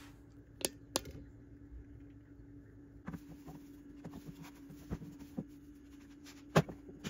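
Light rustling of wood-shaving hamster bedding and a few sharp plastic clicks as a plastic hamster house is handled and set into the shavings, over a faint steady hum. Two clicks come about a second in, and the loudest click comes near the end.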